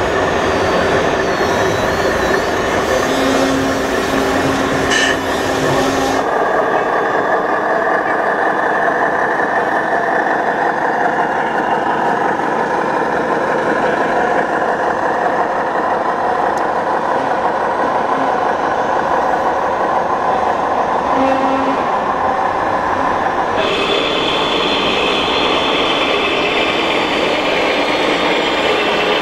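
Electric motors and gearing of 1/14-scale RC construction machines and trucks running steadily. The sound changes abruptly about six seconds in and again near the end.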